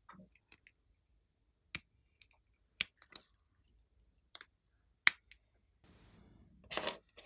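Clear slime being worked by hand, giving sharp sticky clicks and pops at irregular intervals, the loudest about five seconds in. Near the end comes about a second of soft crackle, then a louder squish.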